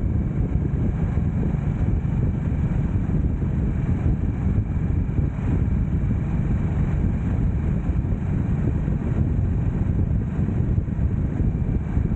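Harley-Davidson Nightster 975's V-twin engine running at a steady cruise, with wind noise over the microphone.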